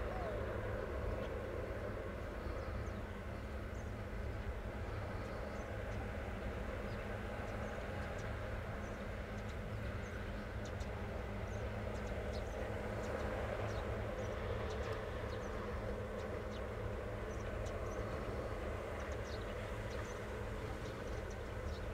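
Steady low outdoor rumble with faint high-pitched ticks scattered through it.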